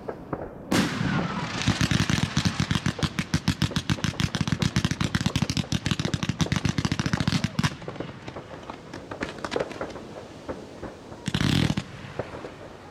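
Firework batteries (cakes) going off: a bang about a second in, then a rapid volley of shots lasting some six seconds, followed by scattered pops and crackling and a short dense burst near the end.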